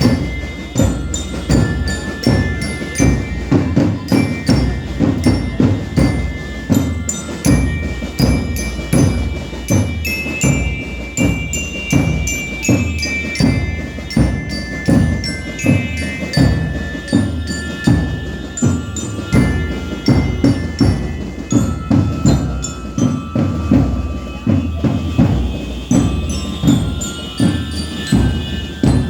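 Marching band playing, with bell lyres carrying a ringing melody over a steady beat of drums.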